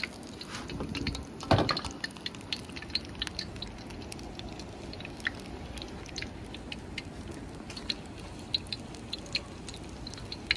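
Hush puppies frying in a pan of hot grease: a steady sizzle with scattered crackles and pops, and one louder knock about a second and a half in.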